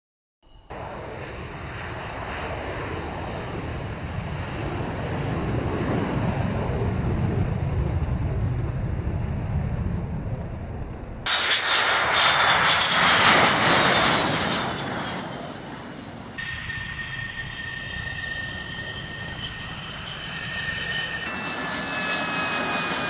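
Military jet fighter engines: a deep rumble that builds for about ten seconds, then an abrupt switch to a louder, sharper jet noise with a high whine. The sound changes twice more, ending with engine whines sliding slightly down in pitch.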